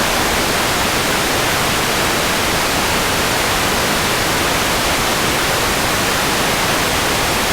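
Loud, steady static hiss, even across low and high pitches, like a television receiving no signal.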